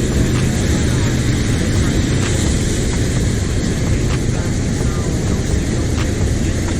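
Steady rush of river water pouring over a low weir, a loud even noise heavy in the low range.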